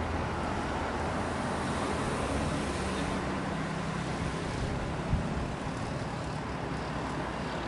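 Road vehicles running nearby, with a steady low engine hum over traffic noise. A single short thump comes about five seconds in.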